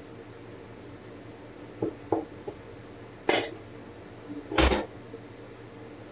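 Light metallic clinks and knocks from pieces of cut brass cartridge case being handled and pressed down over screw heads. Two small taps come about two seconds in, a sharp clink a second later, and the loudest knock, with a dull thud, at about four and a half seconds.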